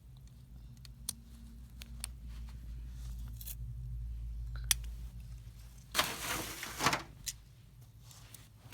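Hands assembling a snap-together model airliner: a few sharp small clicks of the parts being handled and pressed, and a louder rustling scrape about six seconds in, over a low rumble that swells and fades.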